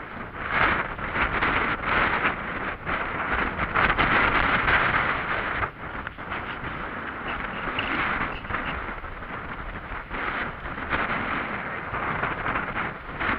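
Wind buffeting the microphone of a body-worn camera, rising and falling in gusts, with footsteps crunching on a dry gravelly trail.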